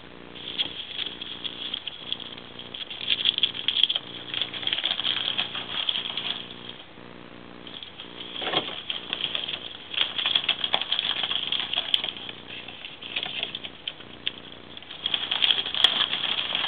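Ferrets scrambling through a flexible aluminium foil duct hose on a wooden floor, the foil crinkling and rattling in bursts of a few seconds with short lulls between.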